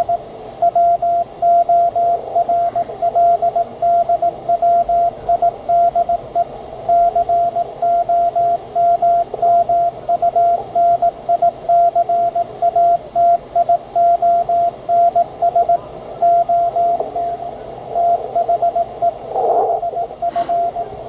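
Morse code (CW) from a radio loudspeaker: a single-pitch beeping tone keyed on and off in quick dots and dashes over faint hiss. It is an ARRL code transmission being received.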